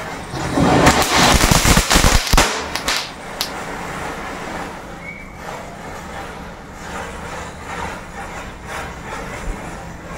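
Small firecrackers and burning matchsticks go off in a rapid run of crackling pops with deep thuds, starting about a second in and lasting about two seconds. After that the matchstick chain burns on with a steady, quieter crackle and hiss.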